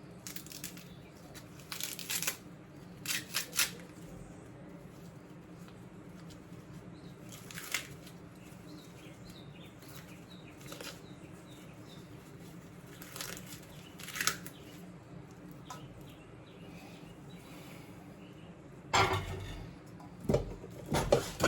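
Dry corn husks rustling and tearing in short, scattered bursts as ears are handled and stripped, over a steady low hum. The loudest burst comes near the end.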